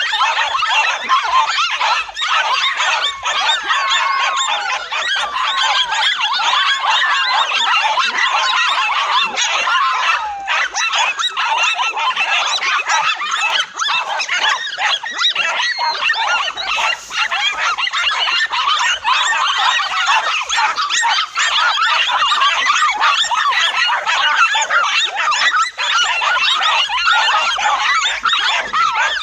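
A pack of dogs barking and yelping all at once, a dense unbroken din of many overlapping calls.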